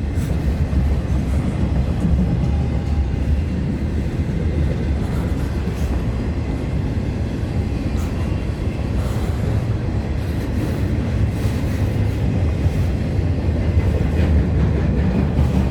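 CN freight train's cars rolling past on the track: a steady low rumble with a few faint wheel knocks.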